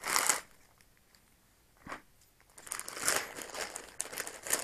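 Thin plastic bag crinkling as it is handled and pulled at to get it open: a short burst at the start, a single tick near two seconds, then irregular crinkling through the second half.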